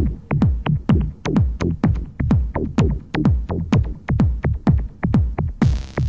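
Electronic techno music with no vocals: a steady beat of deep kick drums that drop in pitch, with sharper percussion hits between them. Near the end a bright hissing wash comes in over the beat.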